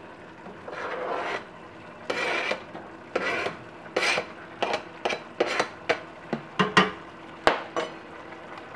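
A metal spoon scraping chopped okra off a plastic cutting board into a pot: a dozen or so rasping strokes that come quicker from about four seconds in, with one sharp tap near the end.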